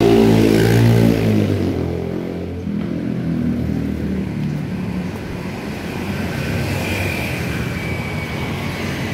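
Road traffic: a vehicle engine loud and close for the first second and a half, then a steady rumble of passing cars and motorcycles.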